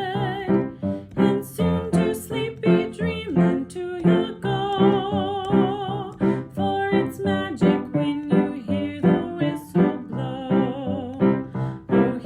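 A song: a woman singing held notes with vibrato over piano accompaniment.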